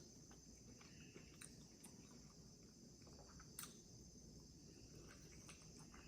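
Near silence: faint chewing and small mouth clicks of someone eating lobster, with one sharper click about three and a half seconds in, over a steady faint high-pitched hum.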